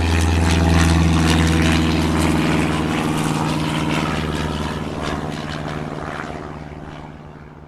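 Turboprop airliner's propellers and engines running: a loud, steady low drone with a pitched hum that slowly fades away.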